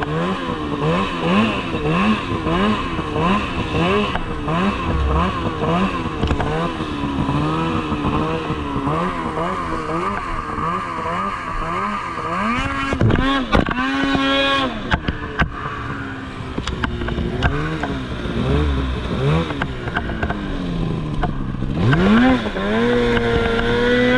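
Polaris snowmobile engine under a rider's throttle, its pitch rising and falling over and over, more than once a second, as the sled runs across snow. About halfway it revs hard and high, then settles, and it climbs again near the end.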